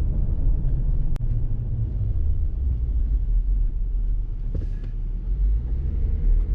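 Steady low rumble of tire and road noise inside the cabin of a 2018 Jeep Wrangler JL Moab, its stock BF Goodrich Mud-Terrain tires rolling at about 35 mph with the windows up. A single short click about a second in.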